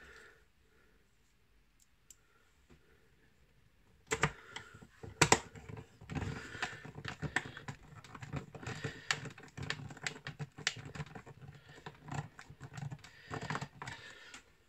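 A small hand screwdriver driving a screw into the plastic frame of an R2-D2 build kit. It makes a dense run of small clicks and scraping that starts about four seconds in, with a couple of louder clicks at the start.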